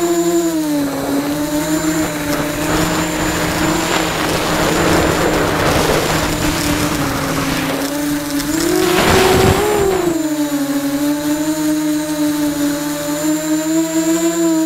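QAV250 miniquad's brushless motors and propellers whining, heard from on board, the pitch sagging and rising with the throttle. About nine seconds in, the whine climbs with a rush of air noise, then drops back and steadies.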